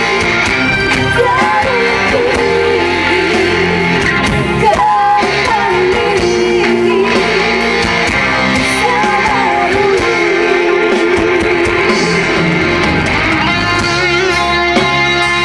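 Live rock band playing loud and steady through a stage PA, with electric guitar lines bending in pitch over the band and some singing, heard from within the audience.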